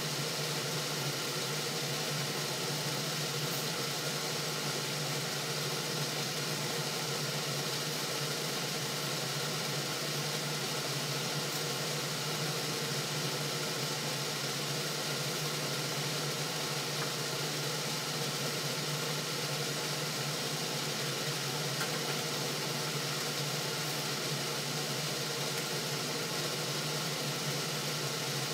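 Steady hum with an even hiss, unchanging in level throughout.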